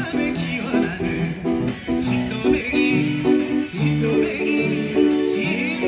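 Upright piano played by ear, chords and bass notes under a recorded trot song whose singer holds notes with a wavering vibrato.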